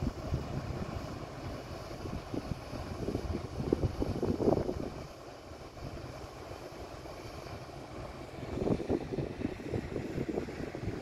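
Low rumble of a passing river cruise ship's engines, with wind gusting on the microphone. The gusts come in two bouts: a few seconds in, and again from about two-thirds of the way through.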